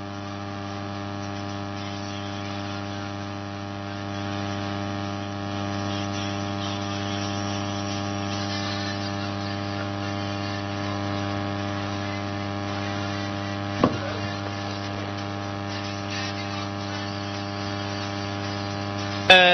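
Steady electrical mains hum through the sound system, with a buzzy stack of overtones, one short click about fourteen seconds in and a sharp pop at the very end.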